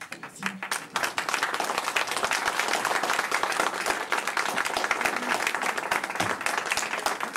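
Audience applauding: many hands clapping together, starting suddenly and swelling to full strength within the first second.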